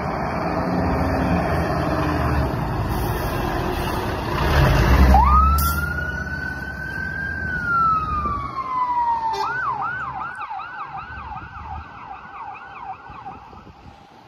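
Fire engine pulling away with its engine rumbling, loudest about four to five seconds in, when its siren starts. The siren gives one slow wail, rising then falling, then switches to a fast yelp of about two sweeps a second that fades as the fire engine drives off.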